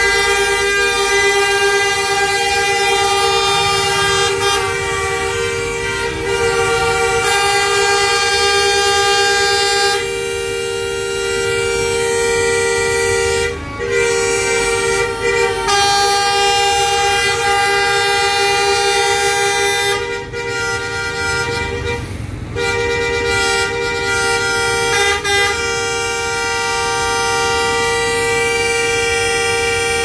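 Several bus horns sounding together in long, overlapping held blasts, the pitches shifting every few seconds, with short breaks about 13 seconds in and again between about 20 and 23 seconds in. These are queued intercity buses honking at one another in a jam.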